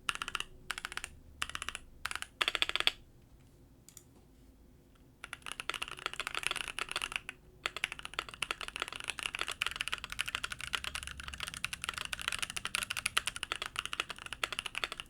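Typing on an Ajazz AC081 mechanical keyboard fitted with two layers of tape (the tape mod): a few short runs of keystrokes, a brief pause, then fast continuous typing.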